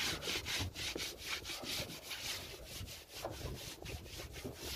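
Rapid, even scraping or rubbing, about five strokes a second.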